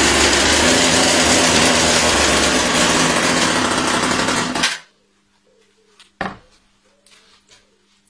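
1958 Little Wonder hedge trimmer's 1 hp Ohlsson & Rice two-stroke engine running loud and steady just after a pull start, then cut off abruptly a little before five seconds in as a thumb blocks its air intake. A single short knock follows about a second and a half later.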